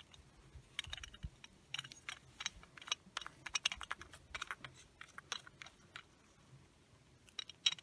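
Faint, irregular small clicks and taps as a brass oil-burner nozzle, held by its plastic cap, is worked by hand against the nozzle holder's thread, which it won't catch on.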